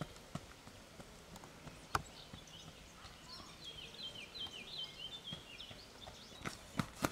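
Running footsteps on a gravel trail that thin out as a runner moves away. From about three seconds in, a small bird sings a series of short, high, falling notes. Near the end, quick footfalls grow louder again as a runner comes close.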